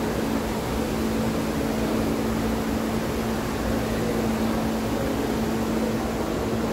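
Steady mechanical hum and rushing air inside a Miami Metromover people-mover car, with one constant low tone running under it.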